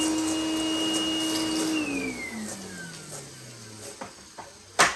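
Dyson DC01 upright vacuum motor running at a steady whine, then winding down with falling pitch after about two seconds, as when switched off, followed by a sharp click near the end. It is powered through a converter and seems to give almost no suction, which the owner suspects comes from the converter.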